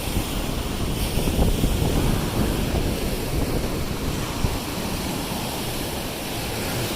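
Lake Erie waves washing and breaking on a sand and pebble shore, a steady surging rush, with wind buffeting the microphone.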